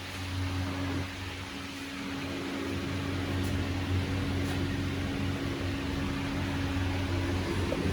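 Steady low mechanical hum, a constant drone with a held tone above it and a background hiss.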